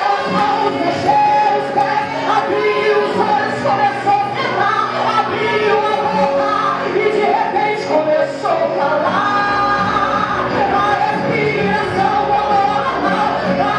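Live gospel song: a woman singing through a microphone over electric guitar accompaniment, with long held notes.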